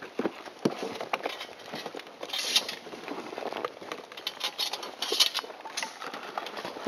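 Light clicks, taps and rustling of small hardware being handled from a cardboard parts box, with two short, stronger rustles about two and a half and five seconds in.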